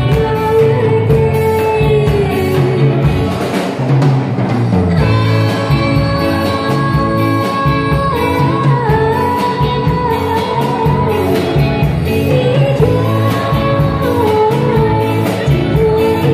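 A live rock band playing: a woman singing in Hmong into a microphone, with long held notes, over electric guitar and a drum kit.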